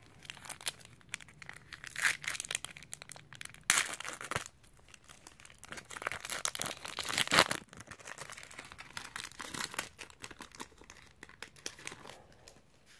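Foil trading-card pack wrapper being crinkled and torn open by hand: a dense, irregular crackling with a few louder rips.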